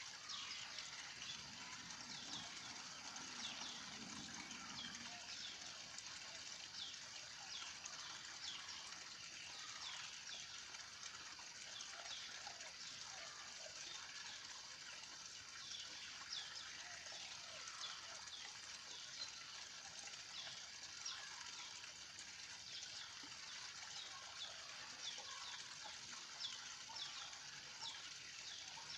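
Faint outdoor bird chorus: many short, high, falling chirps over a steady high hiss.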